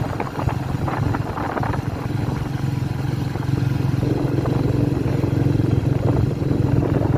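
Engine of the vehicle he is riding, running steadily at cruising speed as it moves along the road, a low steady hum that grows a little louder about four seconds in.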